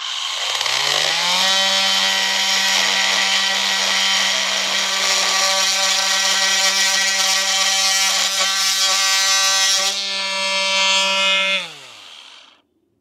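Milwaukee M18 cordless oscillating multi-tool spinning up with a rising whine, then running steadily as its 50 mm blade plunge-cuts laminated chipboard with a harsh buzzing rasp. About ten seconds in the cutting noise eases, and near the end the whine falls away as the tool winds down and stops.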